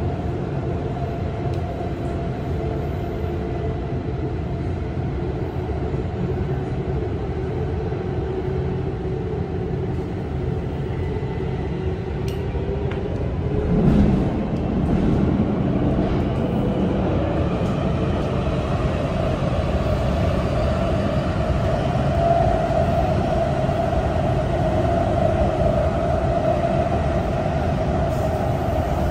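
Kaohsiung MRT Red Line train running, heard from inside the car: a steady rumble of the ride with a hum of a few steady tones. About halfway through there is a brief louder surge of rumble, after which the ride stays a little louder.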